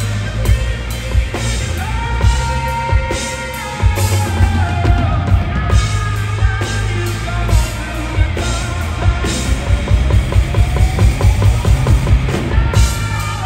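Live rock band playing: a drum kit with a heavy, pounding bass drum, strummed guitar and a sung vocal. A fast run of drum hits comes near the end.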